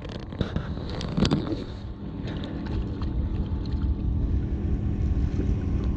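Wind buffeting the microphone in a steady low rumble, with a few knocks from the camera being handled about a second in and again shortly after two seconds.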